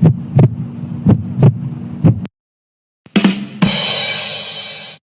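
Heartbeat sound effect: pairs of deep thumps about once a second over a low hum, cutting off about two seconds in. After a brief silence, a second effect starts with a thud and a bright, hissing crash that fades away over about a second and a half.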